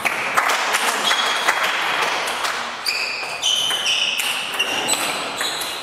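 Table tennis rally: the ball clicks repeatedly off bats and table. In the second half there are short, high squeaks, from players' shoes on the sports-hall floor.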